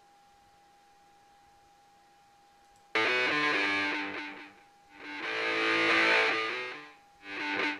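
About three seconds of near silence with a faint steady tone, then playback of a distorted electric guitar track starts suddenly. Sustained chords ring out, each swelling and fading in level, with a short one near the end.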